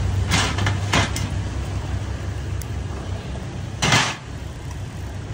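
Clatter of utensils at a food stall: a few short knocks and clicks in the first second, then one louder brief scrape about four seconds in, over a steady low hum.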